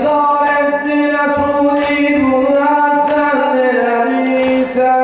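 A man singing an unaccompanied mersiyye, the Shia lament for Husayn, in long drawn-out notes that bend slowly up and down.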